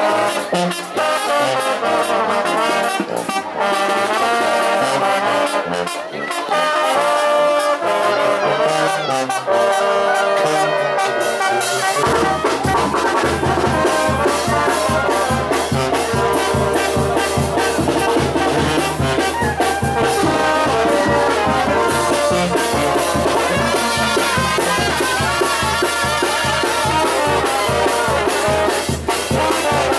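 Brass band music, with trumpets and trombones playing the melody. About twelve seconds in, a low bass line and a steady percussion beat come in under the horns.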